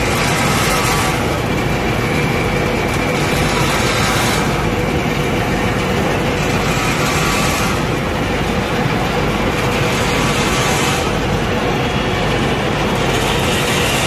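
Steady machinery noise of a running peanut frying line: conveyor drives and motors running continuously, with a hiss that swells and fades several times.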